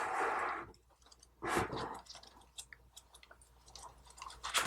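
Pages of a paper watch instruction booklet being handled and leafed through: two brief papery rustles about a second and a half apart, with small taps and clicks between them and a sharper click near the end.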